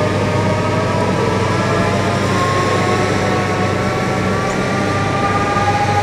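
SENNEBOGEN 735 E-Series timber handler's engine and hydraulics running under load, a whine of several tones slowly rising and falling in pitch over a steady low hum.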